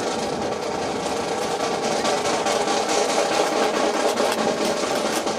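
A steady mechanical drone, like an engine running, with many scattered sharp clicks over it.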